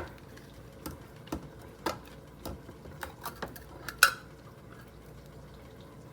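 Smooth-edge can opener being cranked around a metal can, clicking about twice a second, with a sharper metallic click about four seconds in.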